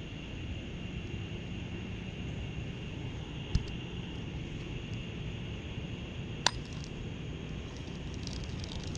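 Steady outdoor background noise with a faint high steady tone, broken twice by a short sharp clink, about three seconds apart.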